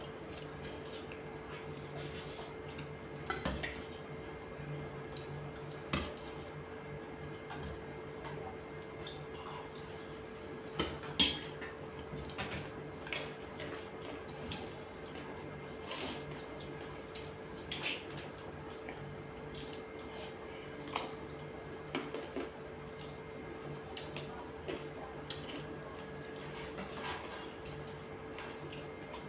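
Scattered clinks and taps of stainless steel plates, bowls and a serving ladle, one sharper clink about eleven seconds in, while food is eaten by hand from the plates. Soft sounds of fingers mixing rice on the steel plates, over a steady low hum.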